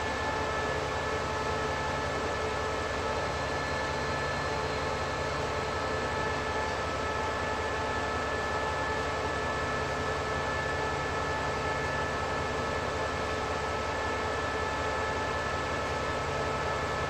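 SRT CDA5B1 diesel-electric locomotive idling at a standstill: a steady engine drone with several steady whining tones over it.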